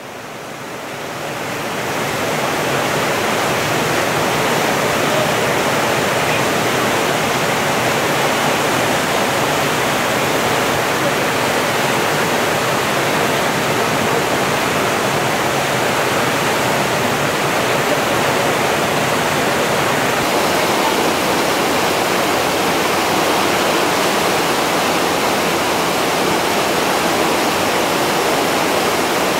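Whitewater rapids rushing and churning in a steady, loud roar of water pouring over rocks and drops. It swells up over the first couple of seconds, then holds even.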